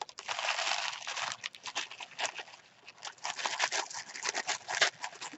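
Packaging rustling and crinkling as a gift package is handled and opened, a dense run of irregular crackles.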